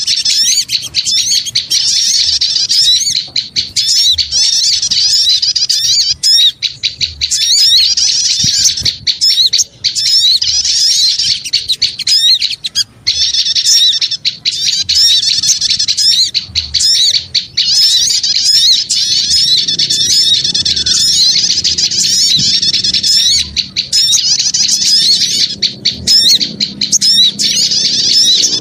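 Small birds chattering noisily in a rapid, dense stream of high chirps and squeaks, in long phrases broken by brief pauses. It is a lure call (suara pikat), played to draw small birds in.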